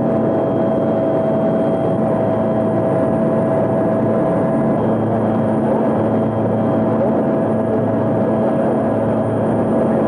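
Helicopter noise heard inside the cabin in flight: a steady, loud drone of engine and rotor with a few constant tones held over it.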